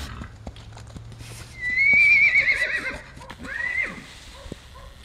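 A horse whinnies loudly about a second and a half in: a long quavering call that falls at its end, then a shorter rising call. Under it, a gaited Tennessee Walking Horse's hooves clip-clop on packed dirt.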